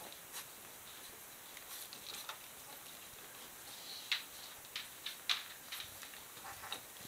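Three-week-old Appenzeller Mountain Dog puppies suckling at their mother: scattered short, quiet smacking clicks. The sharpest clicks come a little after four seconds in and again just after five seconds.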